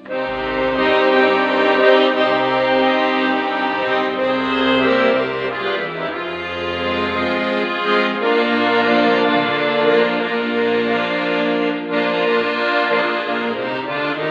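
Accordion playing a traditional folk melody over bass chords, starting suddenly. It is the instrumental introduction to a song that the ensemble sings next.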